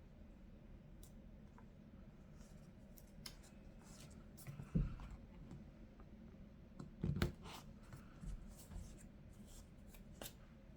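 Quiet desk handling of planner supplies: scattered small clicks and rustles of paper and stickers, with two soft thumps about five and seven seconds in.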